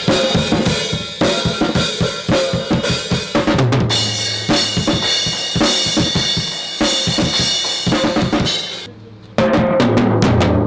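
An SJC acoustic drum kit played fast and hard: quick snare and kick strokes with tom hits under crashing cymbals. There is a brief break about nine seconds in before the drumming comes back in.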